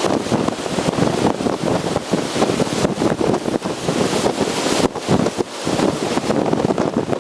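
Gale-force wind buffeting the microphone, rising and falling in gusts, over storm waves breaking on the shore.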